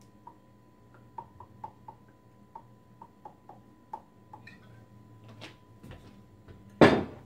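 Olive oil glugging out of a bottle into a measuring cup: a run of quick little gurgling blips, several a second. Near the end comes one loud knock.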